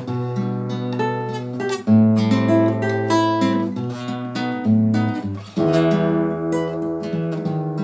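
Solo guitar playing a melody of plucked notes over ringing bass notes, with full strummed chords struck about two seconds in and again about five and a half seconds in.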